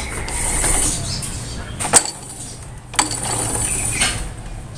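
Exposed centrifugal clutch and gear of a Honda C70 engine turned by hand, clinking and whirring as they spin freely: the clutch housing has been modified to work as an automatic. Two sharp clicks about a second apart near the middle.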